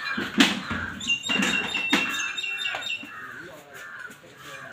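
Crows cawing: several loud, harsh caws in the first two seconds, with fainter calls after.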